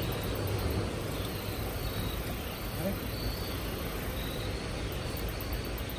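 Steady rush of a flowing river, with faint, short high-pitched chirps that come and go.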